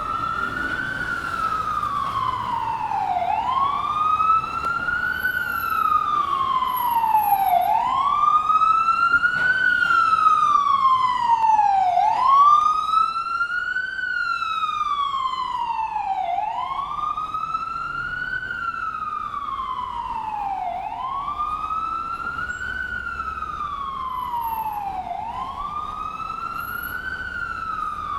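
Ambulance siren in wail mode: a slow, repeating wail that rises and then falls more slowly, about once every four to five seconds. It grows louder towards the middle and fades near the end.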